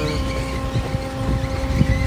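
Portable chair swing ride running at full spin: its drive machinery gives a steady motor hum over a low rumble.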